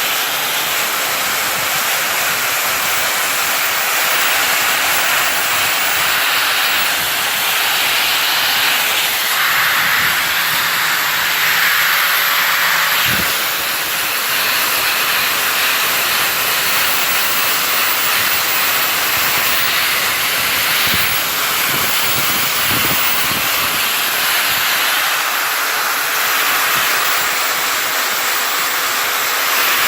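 Power buffing wheel scouring rust off a wrought iron anvil: a steady loud hiss with a faint motor whine underneath, the scraping swelling and easing as the tool is pressed and moved over the metal.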